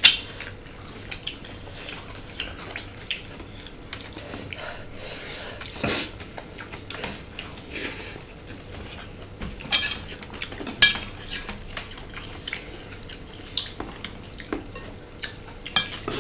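Two people eating salad at close range: soft chewing and mouth noises, with scattered sharp clicks and light clinks of hands and utensils against plates and bowls. A few louder clicks stand out near the middle.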